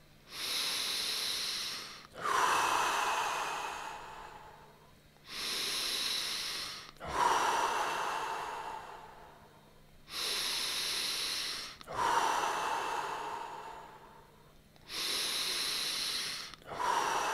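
A person taking deep, audible breaths in a Simplified Tummo / TT5 breathing round, four full breaths in a steady rhythm. Each breath is a hissing draw-in of about two seconds, followed by a longer out-breath that fades away.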